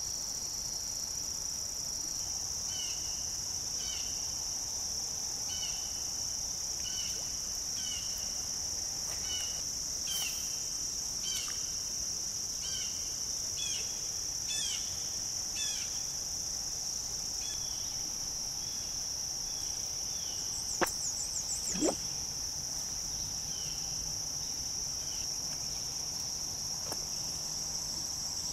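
Steady, high-pitched insect chorus. Through the first two-thirds, a short high call repeats about once a second. Two sharp clicks about a second apart near the end are the loudest sounds, and a low hum follows them.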